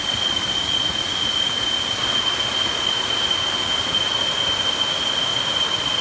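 Water rushing over the rocks of a forest stream and small cascade, with a steady high-pitched whine held over it.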